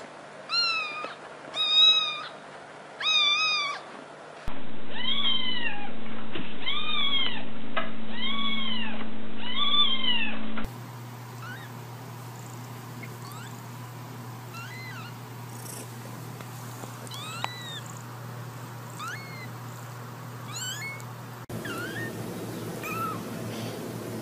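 Kittens mewing, clip after clip: three short meows at the start, then four louder arched meows over a steady hum, then sparser thin, high rising mews from a very young kitten.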